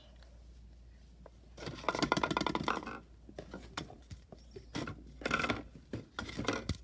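Plastic slime containers being handled and shifted: a stretch of rustling and scraping about two seconds in, then scattered knocks and clicks.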